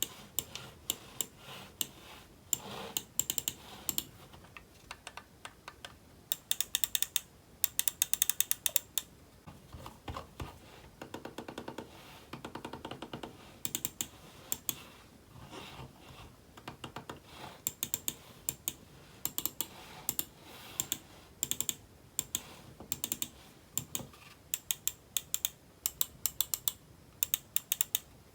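Typing on a computer keyboard: irregular runs of quick key clicks, broken by short pauses of a second or two.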